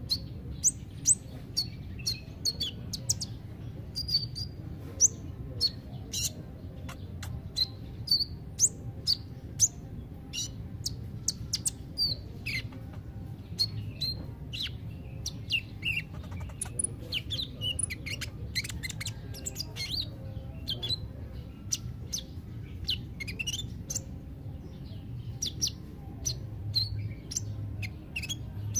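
Van Hasselt's sunbird (kolibri ninja) chirping: a rapid run of short, sharp, high notes and quick downward sweeps, several a second, over a steady low hum.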